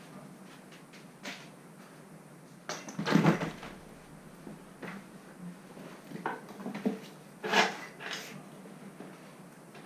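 Scattered knocks and bumps from playing puppies, the loudest about three seconds in and again about seven and a half seconds in.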